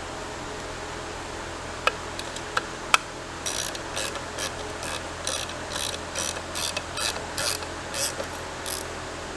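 Hand ratchet running down a small retaining bolt in a Polaris Ranger 900 transmission: a few single clicks, then steady ratcheting strokes about two a second from around three and a half seconds in.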